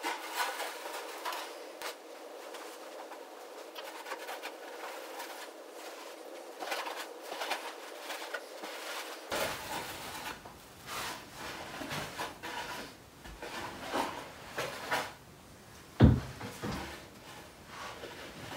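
Scraping and rubbing of a homemade long-handled levelling board dragged back and forth across a sand subfloor, stroke after stroke, with a sharp knock about 16 seconds in. Before that, for about nine seconds, there are only light clicks and rustles.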